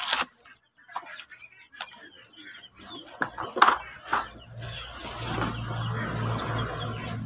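Handling noise from unpacking a boxed chainsaw kit: plastic wrapping and cardboard rustling, with scattered knocks and clicks. From about four and a half seconds a steady low hum and louder rustling set in.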